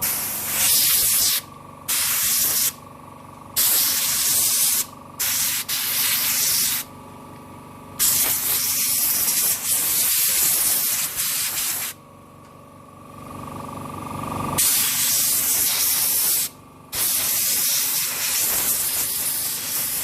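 Compressed-air hose nozzle blowing dirt out of a keyboard in about eight on-off blasts of hiss, most around a second long and two of about four seconds.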